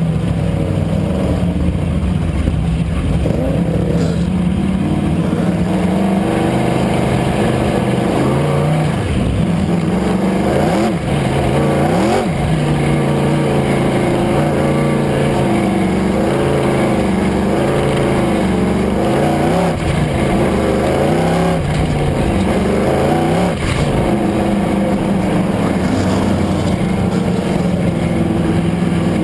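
Race car engine at racing speed, its pitch rising and falling over and over as it lifts off and accelerates again around the track.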